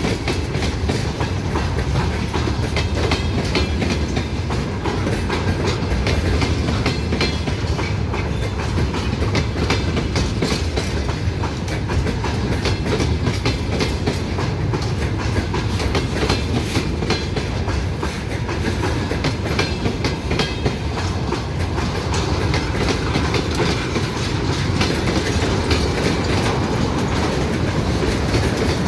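Train rolling past, its wheels clattering steadily over the rails.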